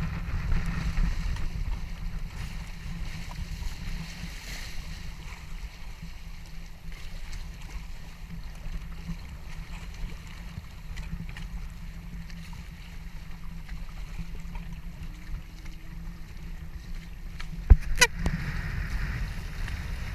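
Lake water rushing and splashing along the hulls of a Hobie Tandem Island sailing trimaran under sail, with a steady low rumble of wind on the microphone. There is one sharp knock near the end, followed by a louder burst of splashing.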